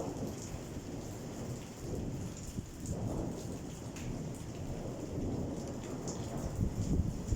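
Rain falling, with a continuous low rumble under it and faint scattered drop ticks.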